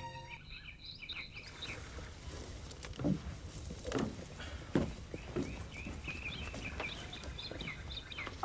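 Small birds chirping over a faint outdoor ambience, with a few soft thumps about three, four and five seconds in.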